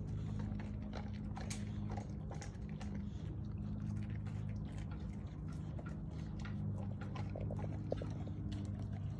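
Dog gnawing on a hard white chew bone, its teeth clicking and scraping irregularly on the bone. A steady low hum runs underneath.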